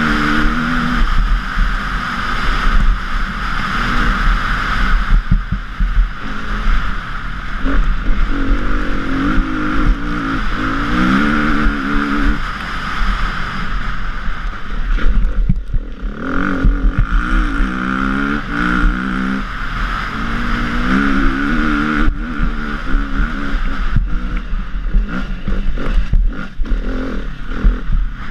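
KTM EXC 350 single-cylinder four-stroke enduro engine working hard, heard from on the bike. Its revs climb and drop again and again as the rider rolls the throttle on and off, with a brief let-off about halfway through. Sharp knocks and rattles from the bike over rough gravel sound throughout.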